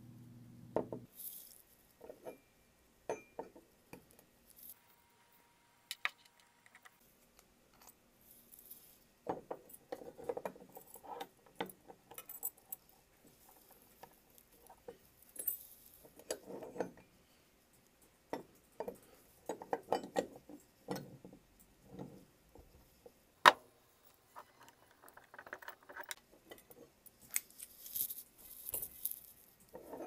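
Scattered metal clicks, clinks and knocks as a steel puck padlock and door hasp are handled, with keys jangling. A single sharp click about two-thirds of the way through is the loudest.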